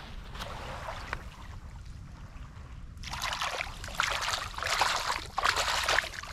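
Shallow seawater splashing and sloshing as hands stir it, in irregular bursts that start about three seconds in; before that, a faint low rumble and quieter water.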